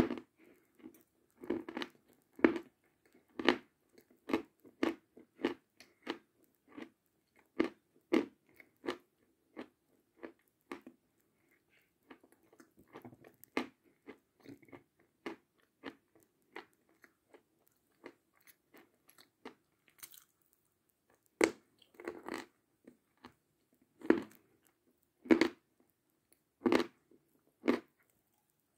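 Chalk coated with clay paste being bitten and chewed close to the microphone. Sharp crunches come about once or twice a second, turn softer and sparser in the middle, then grow loud again near the end.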